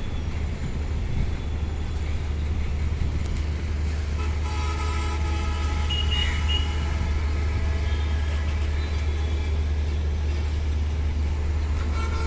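City street traffic: a steady low rumble of vehicles, with horns sounding in the middle.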